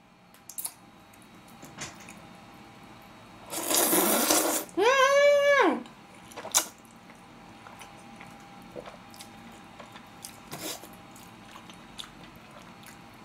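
A loud slurp of jjajangmyeon noodles lasting about a second, followed at once by a short high hum that rises and falls in pitch, then quiet chewing with scattered small mouth clicks.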